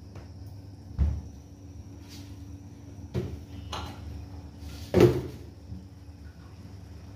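A few short knocks and thuds off the pot: one about a second in, two close together around three seconds, and the loudest about five seconds in. A steady low hum runs beneath them.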